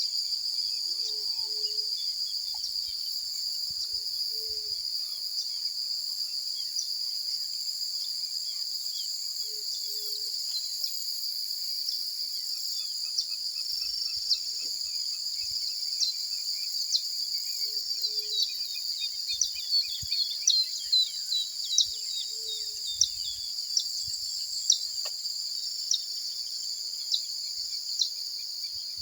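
Dawn chorus: a steady, high-pitched trill of insects such as crickets carries throughout, with many short bird chirps over it that grow busier in the second half. A low, short call comes back every few seconds.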